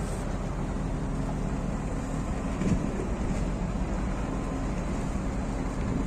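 Steady low rumble of a vessel's engine, with wind on the microphone and a brief swell about two and a half seconds in.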